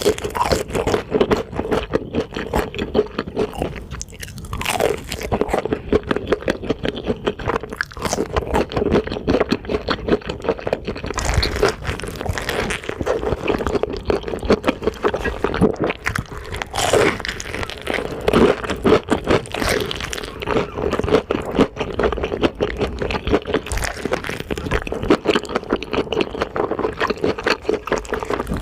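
Close-miked ASMR eating of fast food: continuous crunching and chewing, with many quick crackly bites, over a steady hum.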